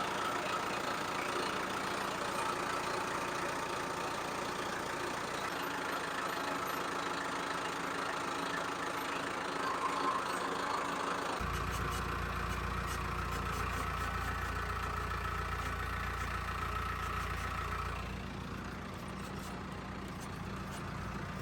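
Tractor engine running steadily while pulling a subsoiler through the ground, with an abrupt change to a deeper, heavier sound about halfway through.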